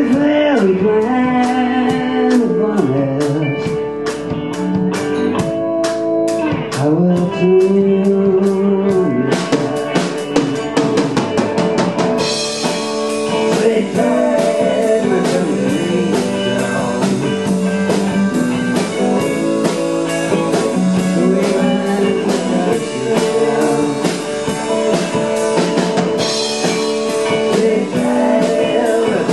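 A blues-rock band playing live: electric guitar and drum kit with a lead line that bends in pitch over a steady cymbal beat. The drumming gets busier and the cymbals louder about ten to twelve seconds in.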